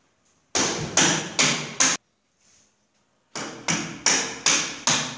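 Hammer blows on a wooden frame: four strikes about half a second apart, a short pause, then five more at the same pace.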